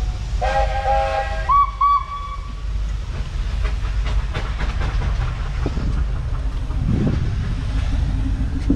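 A low, steady engine rumble from the Field Marshall's single-cylinder two-stroke diesel engine running. Over it, steam whistles sound: a held chord of several notes about half a second in, then two short, higher toots.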